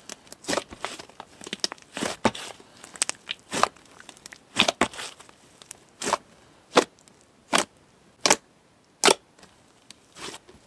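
Soft, chewy clay slime being pressed and pulled by hand, giving sharp sticky pops and crackles. They come thick at first, then thin out to about one pop a second.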